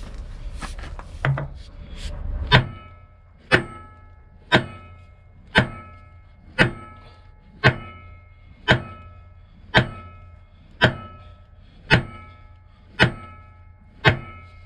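A hammer striking steel about once a second, twelve ringing blows starting a couple of seconds in, on a rusted, seized steering joint that is being driven loose.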